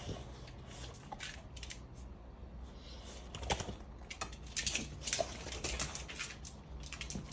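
Dogs' claws clicking and scrabbling on a hard wood-look floor as two bully-breed dogs play-wrestle. The clicks are sparse at first, then come in a rapid, irregular run from about three seconds in.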